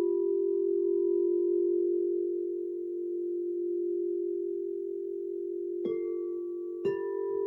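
Quartz crystal singing bowls: a steady, full low hum held throughout, with two higher struck tones about a second apart near the end that ring on over it.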